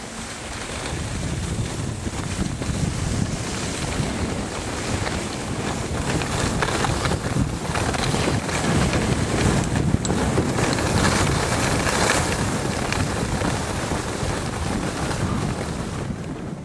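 Wind rushing over the microphone of a camera carried by a skier going fast downhill, mixed with the hiss of skis sliding over snow. It grows louder over the first couple of seconds and cuts off suddenly at the end.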